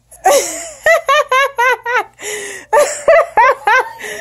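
A young girl laughing and squealing in quick, high-pitched bursts of excited delight.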